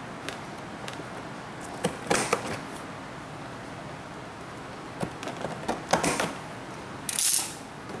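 Cardboard box being handled and opened: a few light taps and knocks, then a short scraping swish near the end as the lid is pulled open.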